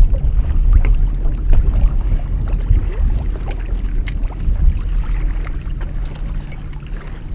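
Choppy lake water slapping against a fishing boat's hull over a low wind rumble on the microphone, with scattered small ticks; it eases off somewhat toward the end.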